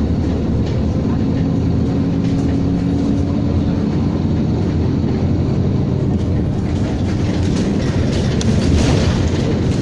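Bus running at speed, heard from inside the passenger cabin: a steady engine drone with road rumble, plus rattles and knocks that grow busier about eight to nine seconds in.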